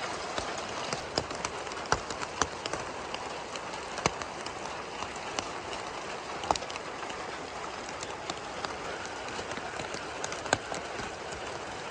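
Rain falling steadily, with irregular sharp ticks of small hailstones striking the ground and nearby surfaces.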